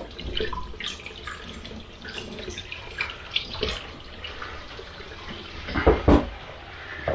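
Cold kitchen tap running into a stainless steel sink as a salmon fillet is rinsed under it. A few knocks over the running water, the loudest a thump about six seconds in.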